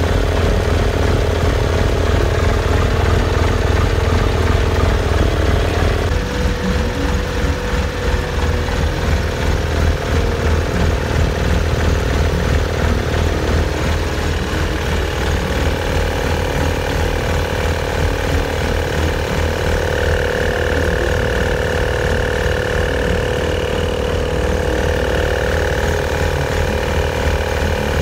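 A machine running steadily, with a deep hum and a steady mid-pitched tone that drops slightly about six seconds in.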